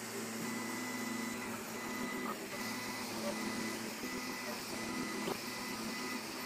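Anet A8 3D printer running as the print head lays down the first layer: a steady machine hum with a thin, high, steady whine over it.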